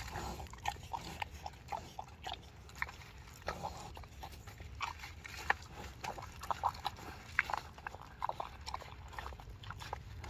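Pot-bellied pig eating pumpkin pie out of a pie tin: irregular chewing, smacking and snuffling at the food.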